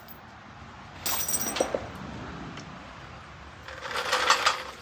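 Metal clattering and jingling in two short bursts, about a second in and again near the end, from hands-on work with metal parts while the vehicle is being stripped.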